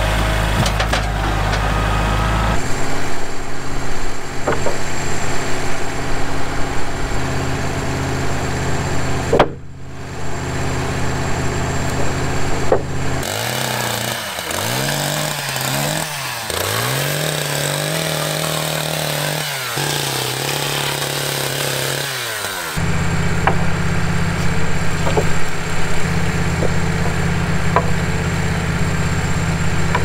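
An engine idling steadily. Around the middle, a two-stroke chainsaw revs up and down several times over about ten seconds, and then a steady engine idle returns.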